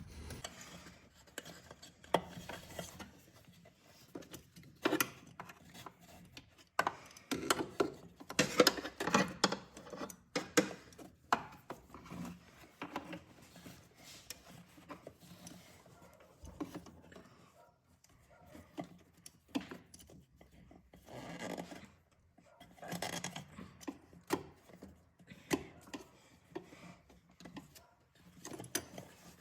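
Hand-work noises while a fuel filter is tightened and fitted: scattered clicks, knocks and rubbing of a tool and hands on the filter and surrounding engine parts.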